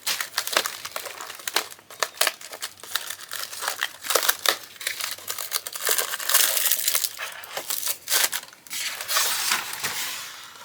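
A wrapped advent-calendar chocolate being opened and unwrapped by hand: irregular crinkling and crackling of the wrapper, with small clicks.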